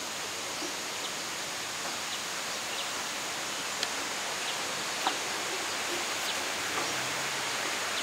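Steady rushing hiss of outdoor forest ambience, with a few faint short chirps and two sharp clicks a little after the middle.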